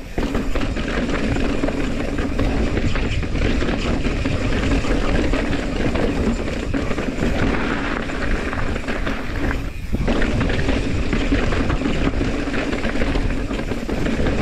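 Mountain bike riding fast over rough rock: tyres rolling and the bike rattling, a steady rushing noise with a brief dip just before ten seconds in.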